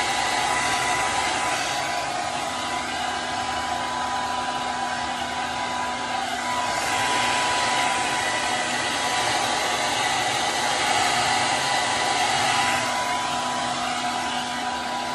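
Handheld hair dryer running steadily while blow-drying hair: a constant rush of air with a steady hum and whine, swelling and easing slightly as it is moved around the head.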